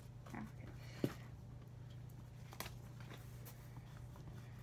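Quiet room with a steady low hum, a short knock about a second in and a few faint clicks from hands handling paper.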